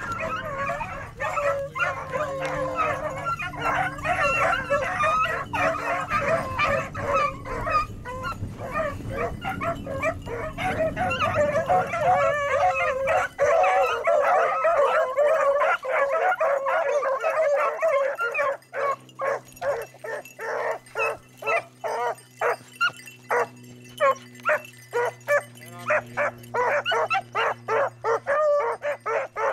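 A pack of beagles baying together on a rabbit's scent line, many hound voices overlapping. About two-thirds of the way in the chorus thins to short, evenly spaced barks, about two a second.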